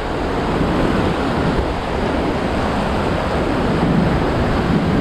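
Surf breaking and washing over a rocky shoreline: a steady rush of churning white water that swells and eases.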